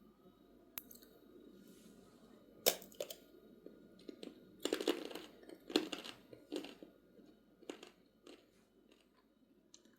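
Irregular crisp crunches and crackles at close range, about a dozen spread unevenly, the loudest clustered near the middle.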